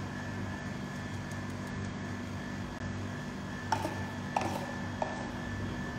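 Steady low background hum, with three light metallic taps and a brief ring in the second half: a metal sieve knocking against a stainless steel bowl while baking powder is sifted through it.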